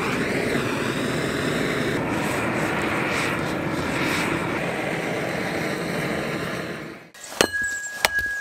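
Hand torch fed from an LPG cylinder, its flame burning steadily as it singes the hair off cow's feet. The flame cuts off about seven seconds in, followed by a few sharp knocks and scrapes.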